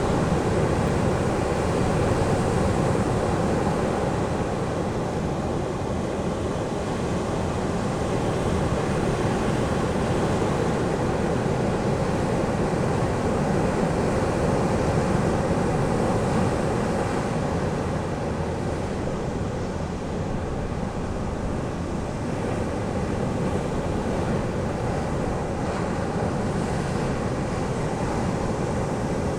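Ocean surf on a sandy beach: a steady rushing wash of breaking waves that swells and eases slowly.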